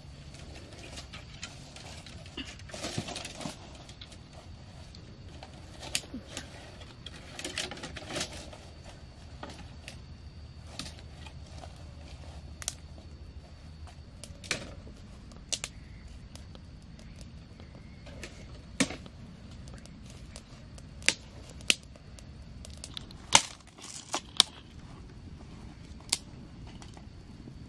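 Dry sticks and twigs being handled and snapped, with rustling of brush and a series of sharp, irregular cracks, the loudest in the second half.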